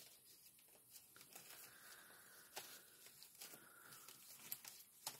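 Near silence: room tone with a few faint, soft ticks.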